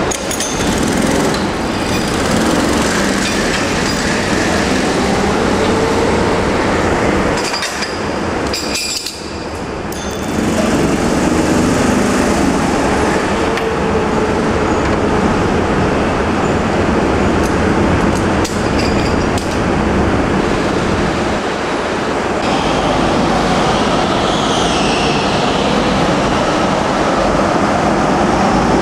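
Go-kart engines running and revving as several karts lap the track, a steady loud din that dips briefly about a third of the way through and then comes back.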